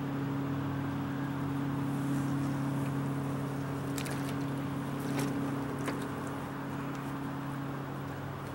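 Steady low mechanical hum of a motor running in the background. A few light knocks and clicks come about four to six seconds in, as a pump and hose are set down in the water in the bottom of a small boat.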